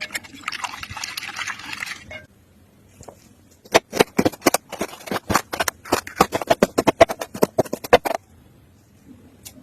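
Kitchen food-preparation sounds: about two seconds of hissing, like liquid being poured, then after a short pause several seconds of rapid sharp taps from a utensil working in a bowl or on a board.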